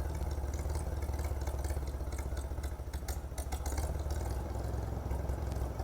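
Old tractor engine idling with a steady low putter and a light mechanical clatter.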